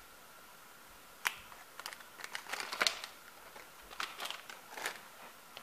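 Plastic packaging of scrapbooking die-cut packets rustling and crinkling in short bursts as the packets are put down and picked up, with a sharp tap about a second in.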